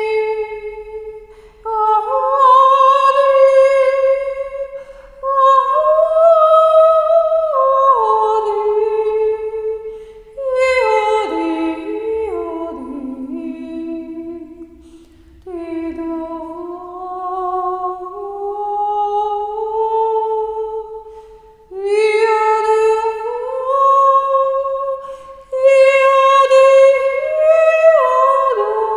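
A woman's voice singing wordless, improvised long held notes that slide up and down in pitch, in phrases of several seconds with short breaths between: spontaneous vocal toning of the kind a Reiki healer voices during a session.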